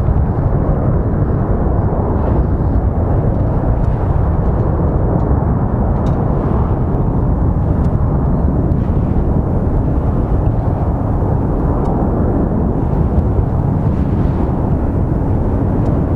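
Boeing 747-400D jet airliner taking off, its four engines at takeoff power making a loud, steady deep rumble.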